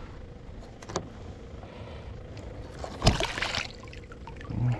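A black drum being released over the side of a kayak, slipping from the hand into the water with one short splash about three seconds in. A faint click comes about a second in.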